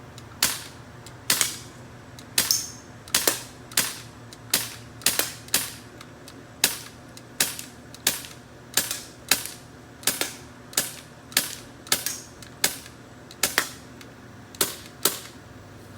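XCP UV Edition CO2 BB pistol firing .177 BBs in quick succession, about twenty sharp cracks a bit under a second apart, until the magazine is empty.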